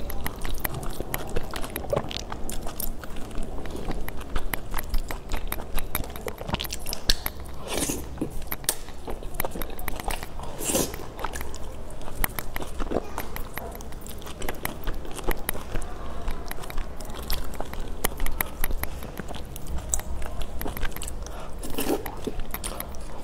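A person chewing and biting soft, chewy food in a thick sauce, close to the microphone: constant wet, irregular mouth clicks and smacks.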